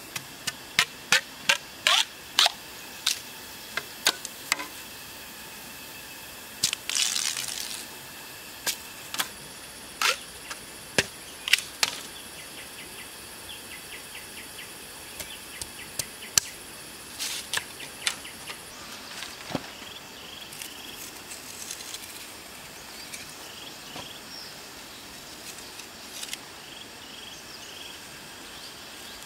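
Bamboo being knocked and split: a quick run of sharp hollow clacks, a brief crackling split about seven seconds in, then sparser clacks. A steady hiss lies underneath, with small chirps in the second half.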